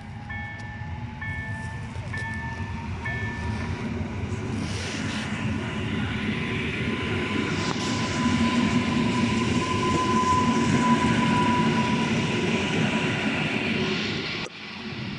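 Regional passenger train running and growing louder, with a low rumble and a whine that rises slowly in pitch. A repeated electronic beep sounds during the first three seconds.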